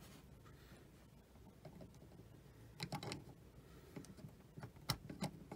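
Faint small clicks and taps of parts being handled as a T-pin is worked back into the coupler assembly of a Lionel 628 O gauge power truck: a cluster of clicks about three seconds in, then scattered ticks and one sharper click near the end.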